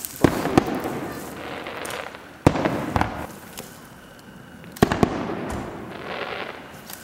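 Aerial firework shells bursting one after another, about every two and a half seconds: each sharp bang is followed by a second, smaller report and a fading, crackling rumble.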